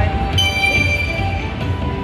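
Slot machine's electronic music over a steady beat, with a set of sustained bell-like chimes that come in about half a second in and ring on.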